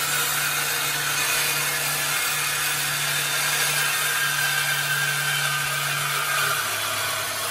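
Power saw cutting through a car's steel exhaust pipe, running steadily, its pitch dropping about six and a half seconds in.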